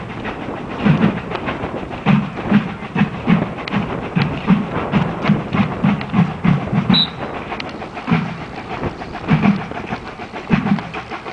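Marching band drumline playing a street cadence: regular low drum beats with sharp snare taps between them, the beats coming faster in the middle.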